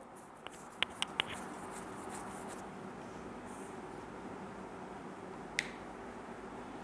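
Steady faint room hiss with a few sharp clicks: a quick run of four about a second in and a single one near the end.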